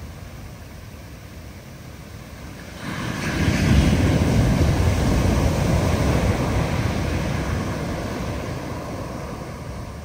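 A big ocean wave breaking: a sudden rush of surf noise about three seconds in, loudest a second later, then slowly dying away over the following several seconds, over a steady background of surf and wind.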